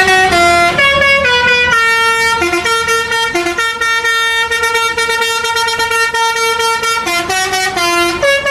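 Basuri telolet bus horn playing a melody: several loud horn tones sounding together, stepping from note to note, with a long held chord in the middle.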